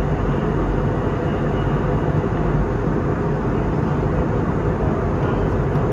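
Airbus A320 cabin noise in flight: a steady, even rumble and rush of engines and airflow heard inside the cabin.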